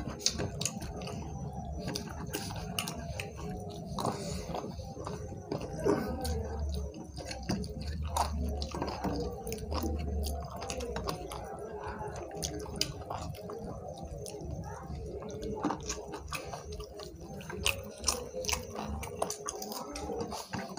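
Two people eating rice and curry with their hands: close-up chewing and mouth sounds, with fingers mixing rice on plates and many small clicks.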